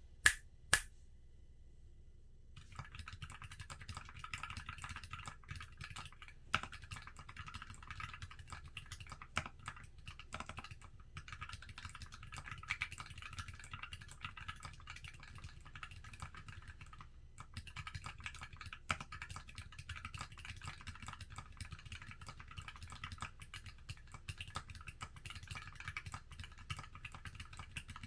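Fast, continuous typing on a GK64XS mechanical keyboard with lubed Tealio V2 linear switches, PBT keycaps and an aluminium case, heard through a phone's microphone. The typing starts a couple of seconds in, with a few louder keystrokes standing out and a brief pause past the middle.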